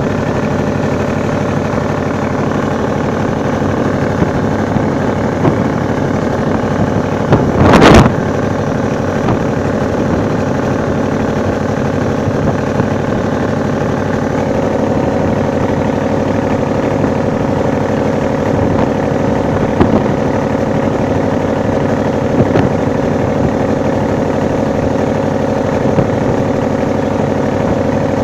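Inboard engine of a wooden motor sailing vessel running steadily under way, with water rushing along the hull. A brief loud burst of noise about eight seconds in.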